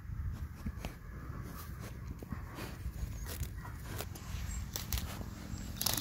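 Sheep grazing close by, cropping grass in a string of short tearing bites, over a low rumble of wind on the microphone.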